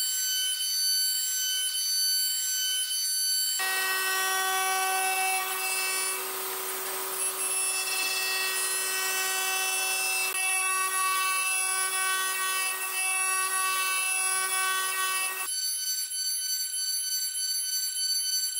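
The 2.2 kW spindle of a Woodpecker DP1212 CNC router runs at high speed while a fine engraving bit cuts brass, giving a steady, high-pitched whine made of several tones. From about four seconds in until about fifteen seconds the whine grows fuller, with a lower tone and a hiss added.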